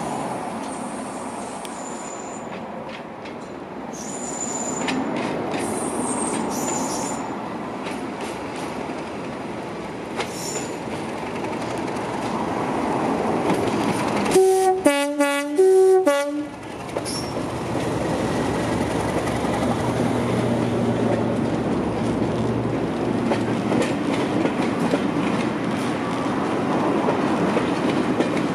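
Class 37 diesel-electric locomotive's English Electric V12 engine working as it approaches hauling coaches. Its two-tone horn sounds about halfway through, high-low, high-low. Afterwards come the engine's steady drone and the coaches' wheels clattering over the rail joints as the train passes.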